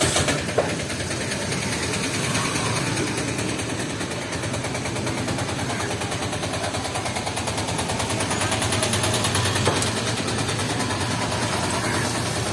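A small engine idling steadily, its rapid firing pulses even throughout.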